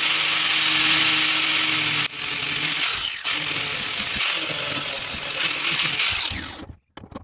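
Flap-disc grinder running against the steel head of a cold chisel, a steady loud grinding hiss with a high whine, easing off briefly about two and three seconds in and stopping near the end. The grinding is rounding the mushroomed striking end back into a half-round.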